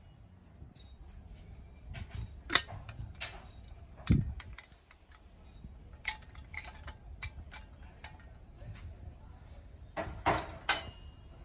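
Scattered clinks and knocks of metal items, likely brass kitchenware, being handled and set down, with a heavier thump about four seconds in and two louder knocks near the end.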